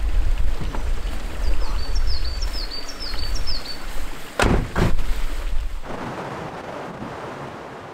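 Wind buffeting the microphone with a low rumble, while a small bird sings a quick run of high descending chirps. Two sharp knocks come about half a second apart near the middle. After that there is a steadier rush of wind through tree leaves.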